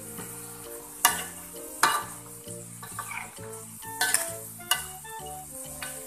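Crinkle-cut potatoes sizzling in hot frying oil as they are scooped out with a metal ladle, which knocks sharply against the wok and wire strainer four or five times.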